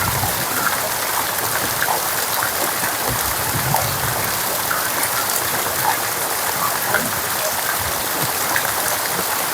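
Steady rain falling: an even hiss with scattered louder drops.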